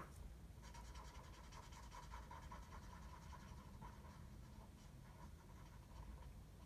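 Faint scratching of a felt-tip watercolour marker colouring in on paper, in quick back-and-forth strokes.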